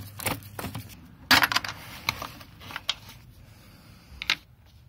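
Several sharp metallic clinks and taps of hand tools and small hardware being handled, the loudest a little over a second in with a brief rattle after it.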